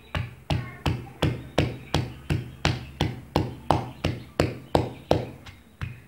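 Wooden pestle pounding onions and green chillies in a clay mortar bowl, grinding them to a paste: a steady thud about three times a second.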